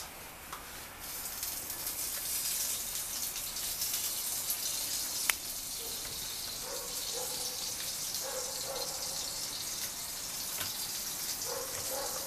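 Pasta sheeter running with a steady hiss while a sheet of egg-pasta dough is fed through its stainless-steel rollers. A faint tone comes and goes in the second half, and there is a single sharp click about five seconds in.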